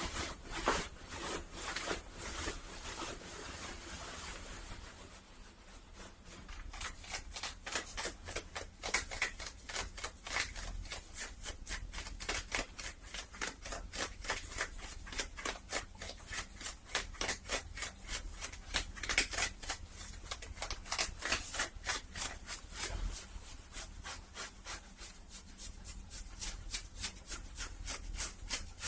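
Cloth being rubbed and scratched close to the microphone as an ASMR trigger: a smooth continuous rub for the first few seconds, then quick, regular scratching strokes, about three a second.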